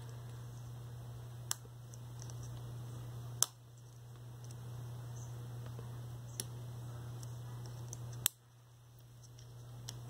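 Sharp plastic clicks from a small screwdriver prying the end cap off a Molex MX150 connector, five in all, the loudest two about a third of the way in and near the end. A steady low hum runs underneath.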